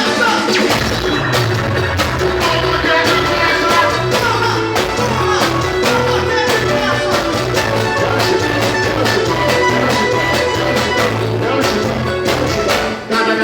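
Loud, lively music with a steady bass beat, briefly dropping out shortly before the end.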